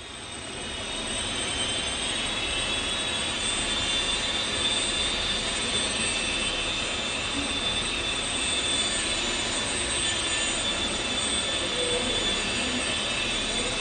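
Electric motor and propeller of an indoor Depron foam 3D RC airplane, a steady high whine at an even pitch as the plane hangs nose-up in a hover, swelling in over the first second or so.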